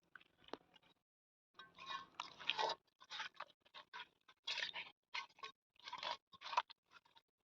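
Chicken leg pieces being mixed by hand in a wet marinade of curd, egg, lemon and spices, the squishing coming in irregular bursts, several a second, from about a second and a half in.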